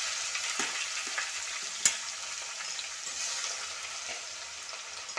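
Chopped shallots with crushed ginger and garlic sizzling in hot oil in an iron kadai, stirred with a metal spoon. There is one sharp knock about two seconds in.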